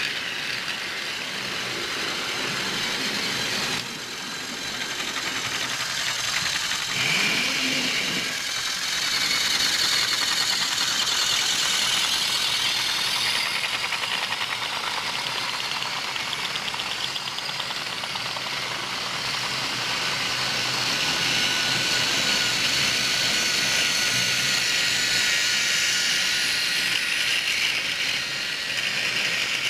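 Battery-powered plastic Thomas & Friends toy trains running on plastic track: a steady whir of small electric motors and wheels rolling over the track, with a faint high whine.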